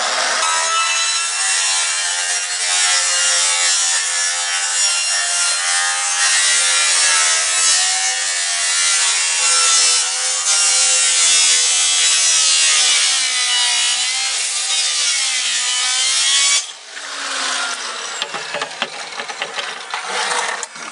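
Corded circular saw cutting through 15-inch corrugated plastic culvert pipe as the pipe is turned, the motor's whine wavering up and down under load. The saw stops abruptly about 16 seconds in, followed by scattered clicks and knocks.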